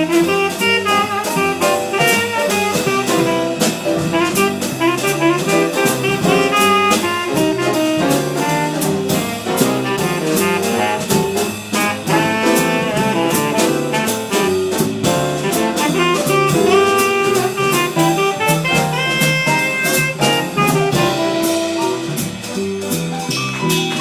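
Live small-group jazz: a horn plays a fast, running melodic line over drums, with cymbals ticking steadily throughout.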